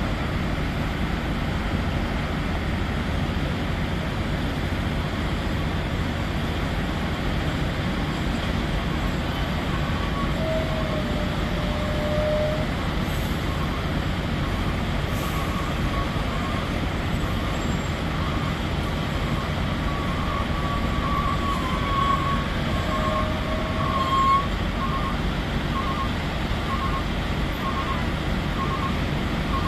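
Heavy diesel engines of an excavator and dump trucks running steadily. About two-thirds of the way in, a truck's reversing alarm starts beeping at an even pace.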